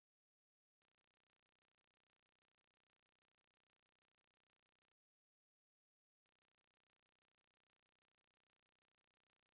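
Near silence: the sound track drops out to an almost empty digital noise floor.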